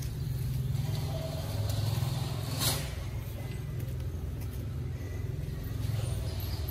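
Steady low hum of city street traffic, with one short sharp click about two and a half seconds in.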